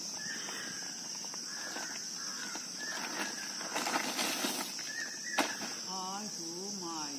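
Insects chirring steadily and high-pitched in the background, with short chirps now and then.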